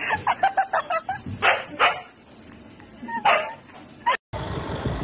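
A dog barking: a quick string of short yaps in the first second, then two louder barks and one more a little later.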